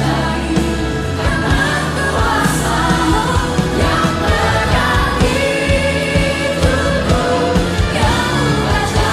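Contemporary Christian worship song: singers over a full band with a steady beat.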